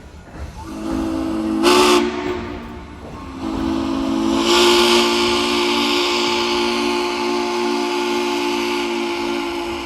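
Steam locomotive whistle sounding several notes at once: a first blast, a brief dip, then a long held blast, with loud hissing steam mixed in.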